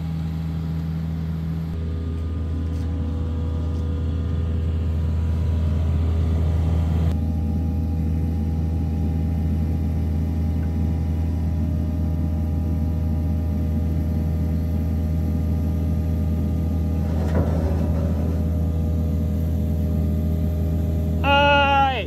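Mini excavator's diesel engine running steadily at close range under hydraulic load while its arm lifts a long steel H-beam on a sling. A short rising pitched sound comes just before the end.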